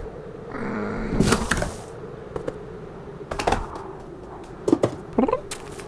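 Cartoon sound effects of a cat getting in through a window: a brief low vocal sound, then a flurry of knocks and a short swish, a few light taps, and two short vocal squeaks near the end.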